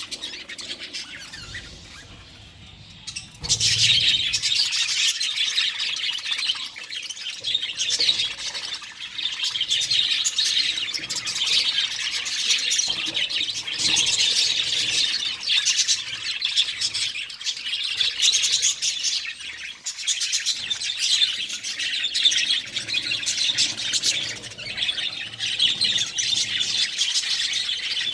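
Budgerigars chirping and chattering in many quick, high calls. The calls are sparse for the first few seconds, then become dense and continuous.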